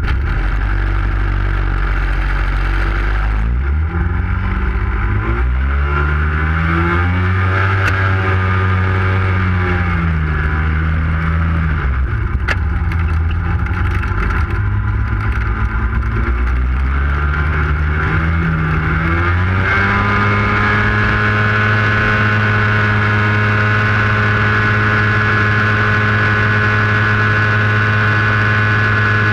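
Aeroshute powered parachute's engine and propeller throttled up for takeoff: idling low at first, the pitch rises a few seconds in and swings up and down several times, then about twenty seconds in it settles at a steady higher pitch at climbing power.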